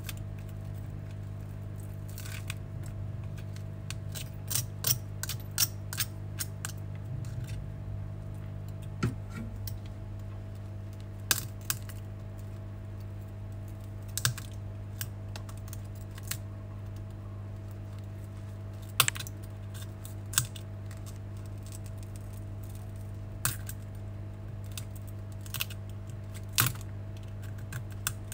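Scattered sharp clicks and taps of metal tools picking and scraping broken glass off a phone's frame, over a steady low hum.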